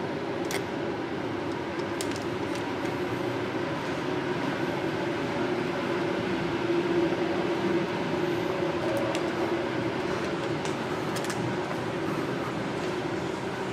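A heritage train running steadily, a continuous rumble and hiss with a low hum and a few light clicks.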